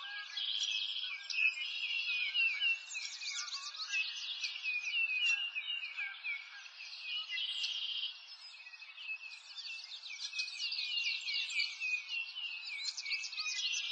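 A dense chorus of birds chirping, with many quick, high chirps overlapping one another and nothing low underneath.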